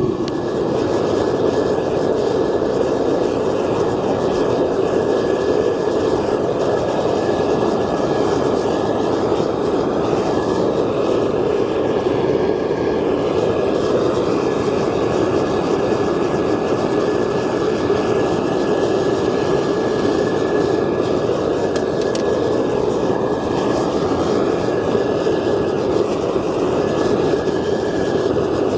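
DIY crucible furnace running, giving a steady, loud rushing noise with a faint high tone held over it.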